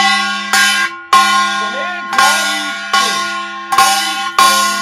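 Kkwaenggwari, the small Korean brass gong, struck about seven times in an uneven pungmul rhythm, each stroke ringing bright and metallic. The hand behind the gong presses and releases to damp it (makeumsae), bending the ringing tone in pitch, "pulling" the note.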